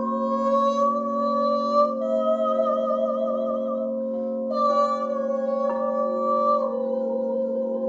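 Crystal singing bowls ringing in a steady low drone as a wand is worked against them, with a woman's voice singing long wordless notes over them, wavering with vibrato and gliding to a new pitch every second or two.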